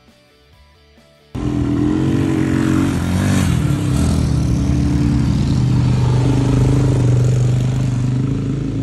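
Dirt bike engine running loud as the bike rides up and past on a dirt trail, cutting in suddenly about a second and a half in, with a brief change in pitch a couple of seconds later. Before it, faint background music.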